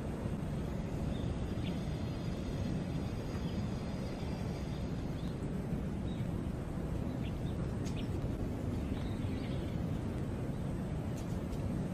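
Steady low outdoor background noise, with a few faint, short bird chirps scattered through it.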